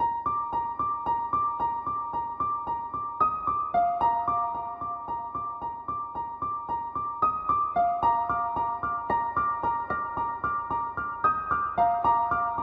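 Background music: a keyboard melody of quick, evenly spaced notes, about four a second, in a short phrase that repeats roughly every four seconds.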